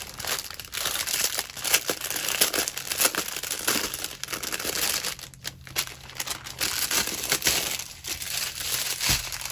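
Small plastic bags of diamond-painting drills crinkling as they are handled and sorted, a continuous crackle of many small clicks.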